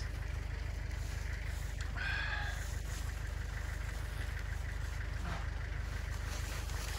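A steady low mechanical rumble, even and pulsing, runs throughout. About two seconds in, a single short high-pitched bird-like call cuts briefly over it.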